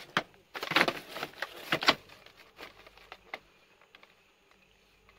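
Plastic vacuum-cleaner parts being handled: a sharp click at the start, then about a second and a half of rattling and scraping with a couple of sharp knocks, and a few fainter clicks before it goes quiet.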